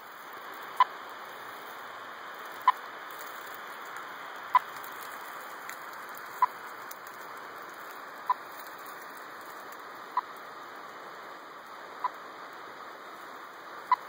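Radio telemetry receiver beeping about once every two seconds over a steady static hiss: the pulse signal from the radio transmitter implanted in a tracked timber rattlesnake.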